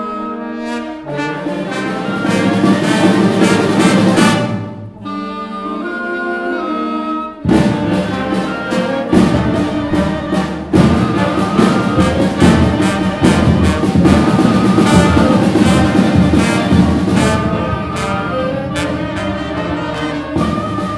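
Concert band playing: brass and woodwinds together, with drums and cymbals. The band swells, drops to a softer passage about five seconds in, then comes back in full with percussion strokes a couple of seconds later and keeps playing loudly.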